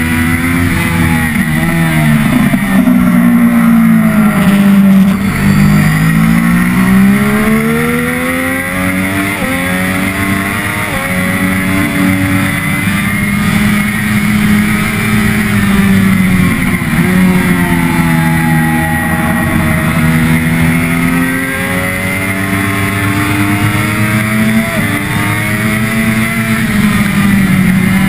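Triumph Daytona 675R's three-cylinder engine at full race pace: the engine note climbs as the bike accelerates through the gears and drops away under braking and downshifts, over and over.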